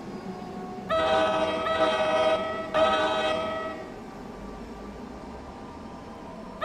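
Locomotive air horn sounding two long blasts, the first about a second in and the second right after it, trailing off, over the steady rumble of the train. Another blast begins at the very end.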